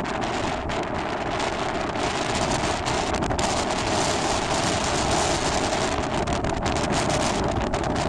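Choppy sea waves washing against a rocky shore in strong wind, with gusts buffeting the phone's microphone; a steady rushing noise.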